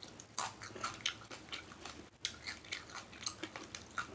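A person chewing shrimp salad and smacking her lips, with irregular sharp smacks and clicks, several a second.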